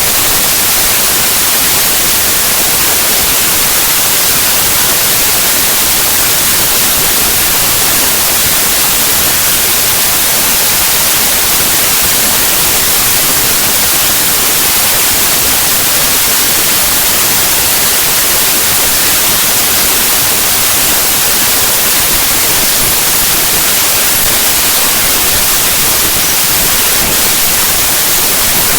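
Loud, steady static hiss, strongest in the treble: the compressed bytes of a zip archive played back as raw 8-bit unsigned audio, which comes out as near-random noise with no pattern.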